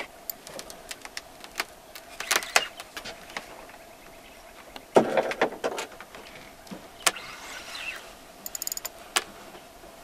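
Spinning reel being cranked under load and its drag clicking while a heavy fish pulls on the line: a mechanical whirring with many sharp clicks, and a few louder, noisier bursts about two and a half and five seconds in.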